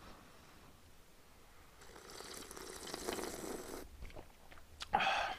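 A person slurping hot stew broth from a large ladle spoon, a noisy sucking slurp lasting about two seconds, followed by a short, louder sound near the end.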